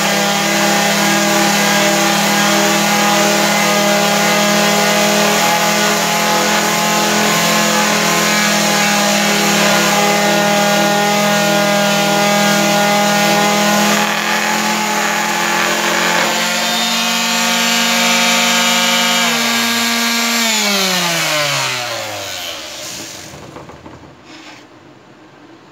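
Two 240-watt electric palm sanders, a Wesco and a Mondial, running together on a thin crate-wood board, a steady motor hum with the rasp of sandpaper. Near the end they are switched off one after the other, each motor's pitch falling as it winds down.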